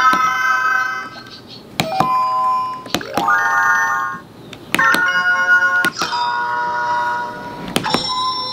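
Hot Dots Jr. electronic answer pen playing short electronic chime jingles, about five or six in a row, each starting with a click as its tip is pressed onto an answer dot; one is a rising run of notes. The pen lights green, so these are its correct-answer sounds.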